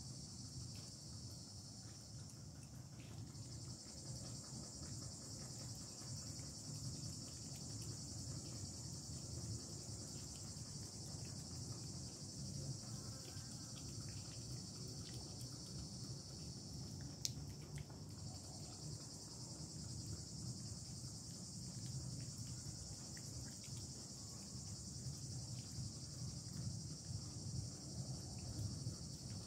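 Steady high-pitched insect chorus, dropping out briefly about three seconds in and again about seventeen seconds in, over a low rumble.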